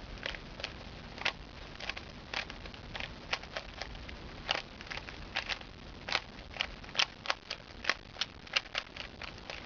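Rubik's cube layers being turned by hand, giving irregular sharp plastic clicks, a few a second, coming faster in the second half: the cube being scrambled.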